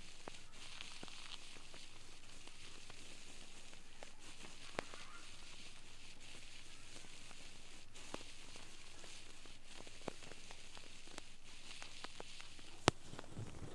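Faint crackling and scratching of an ear pick working in an ear canal, over a steady hiss. Small clicks are scattered throughout, with one sharper click near the end.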